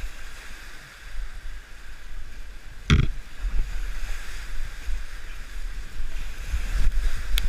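Whitewater rushing and churning around a kayak running a steep Class III rapid, getting louder toward the end. One sharp hit stands out about three seconds in.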